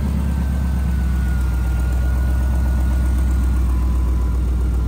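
A 2004 pickup truck's engine idling steadily, heard close up under the open hood, with a faint high whine over the low rumble.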